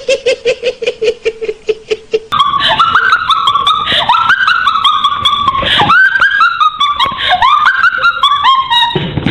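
Laugh sound effects. First a rhythmic laugh pulsing about five times a second on one steady pitch, then, a little over two seconds in, an abrupt cut to a different, high-pitched laugh with squealing rises and falls in pitch.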